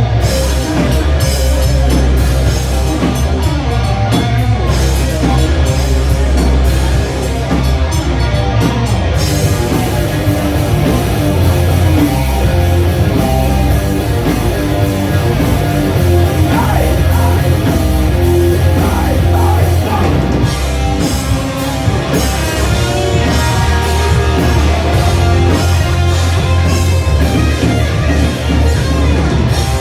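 Live rock band playing loud with a full drum kit and heavy bass. Drum hits cut through at the start and again in the last third, with a continuous cymbal wash in between.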